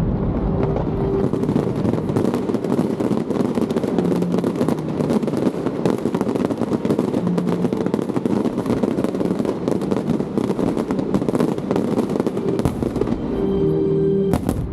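Fireworks show: shells bursting in quick succession, a dense, continuous crackling and popping with heavier bangs among it, over music. The crackle eases near the end and the music comes through more clearly.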